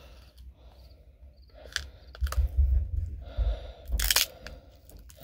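A fresh lemongrass stalk being peeled apart by hand: its fibrous leaf layers tear and crackle, with a few sharp snaps starting about two seconds in and the loudest crack about four seconds in, over dull low bumps of handling.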